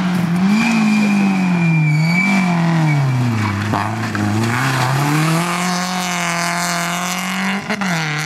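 Peugeot 206 rally car's engine revving. Its note rises and falls a few times, drops low about three and a half seconds in as the car slows, then climbs back and holds a steady pull with a short blip near the end.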